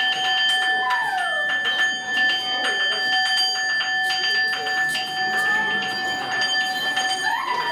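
A steady bell-like ringing tone is held throughout, with gliding pitches sliding down and up over it and scattered rapid clicks. Near the end, rising sweeps come in as the ringing stops.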